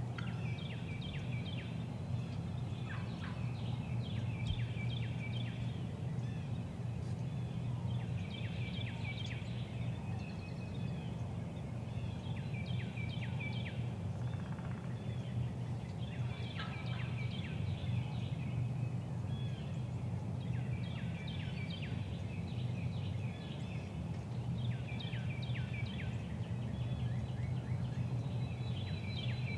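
Eastern wild turkeys gobbling: short rattling calls that come again every few seconds, over a steady low rumble.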